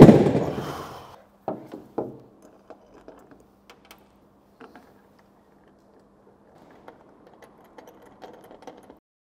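Metal mounting hardware clinking as bolts are fitted and tightened on a rooftop tent's bars: a loud clank at the start that rings away over about a second, two more knocks, then scattered light clicks.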